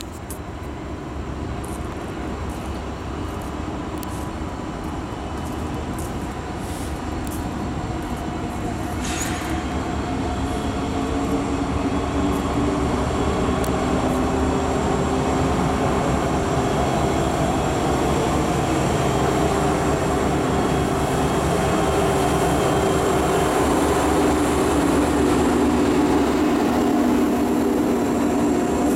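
Norfolk Southern manifest freight train's three diesel locomotives, an EMD SD60E leading a GE C44-9W and a GE ET44AC, approaching and passing. Their low engine drone grows steadily louder as they come by, with steady engine tones coming through in the second half.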